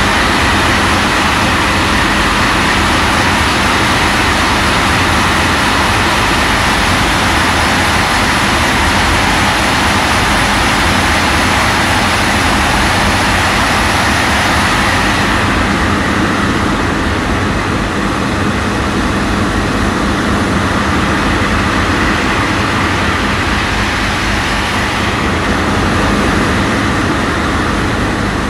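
A ship's engines running steadily underway, a constant mechanical drone with a steady hum over a noisy wash. The high hiss drops off about halfway through.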